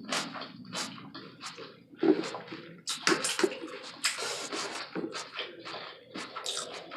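Close-miked chewing of a taco salad: a quick, irregular run of wet mouth smacks and clicks, several a second.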